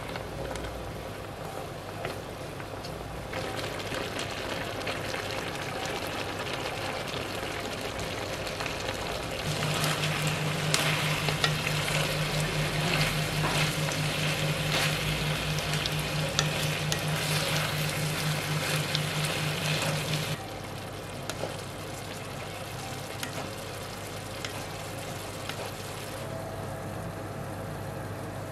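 Pork belly sizzling in its sauce in an enameled cast-iron skillet as it is stirred. The sizzle grows louder about a third of the way in, with a low steady hum alongside, and drops back about two-thirds through.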